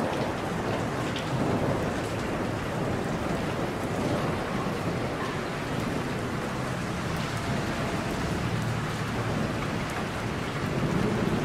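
Steady rainfall, a dense even patter, with a low rumble underneath that swells a little near the end.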